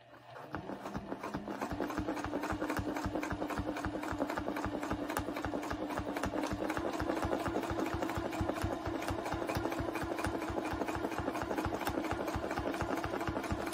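Domestic sewing machine stitching: motor hum under a rapid, even run of needle strokes, starting up and picking up speed in the first two seconds, then running steadily as a quilt is free-motion quilted along a ruler template.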